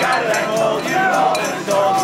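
A group of voices singing a folk song, with strummed acoustic guitars.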